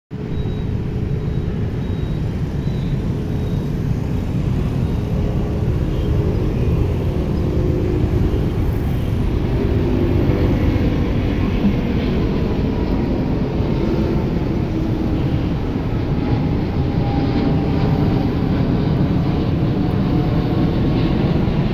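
Rolls-Royce Trent XWB turbofans of an Airbus A350-900 at takeoff power as it climbs out overhead: a loud, steady low rumble that builds slightly over the first ten seconds, with faint whining tones above it.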